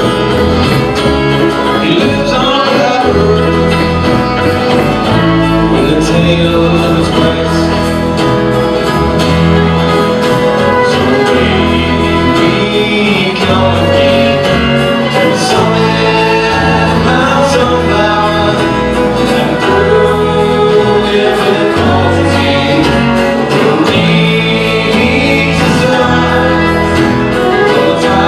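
Live country-bluegrass band playing: alto saxophone, acoustic guitar, banjo and upright bass with a steady stepping bass line, and singing over it.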